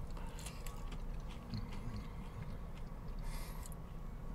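A person chewing a mouthful of fried chicken, with small crunches and wet mouth clicks, over a steady low hum.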